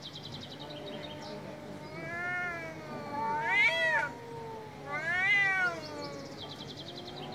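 Two male street cats yowling at each other in a face-to-face standoff: long, drawn-out wails that rise and fall in pitch, the threat calls of tomcats squaring up. The yowls grow loudest a little past the halfway point and again about a second later, then fade to a lower moan.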